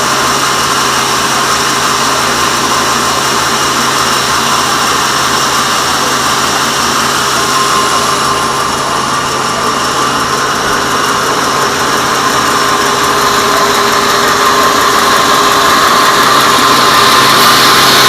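Sawmill band saw running steadily while sawing teak, a continuous loud mechanical whir with a steady hum. It grows louder over the last few seconds.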